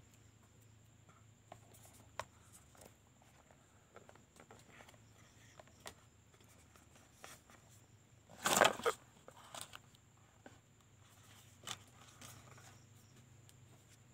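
Handling of a smartphone's cardboard box and plastic packaging: scattered light clicks and taps, with one louder rustling scrape about eight and a half seconds in.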